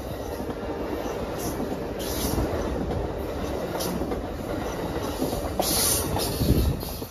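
A train passing close by: a steady rumble and rattle of wheels on the rails, with a few brief bursts of high hiss.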